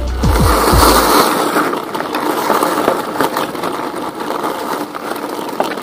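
Bicycle tyres rolling over a rough, gritty track, a steady crunching rumble peppered with small clicks. Background music ends about a second in.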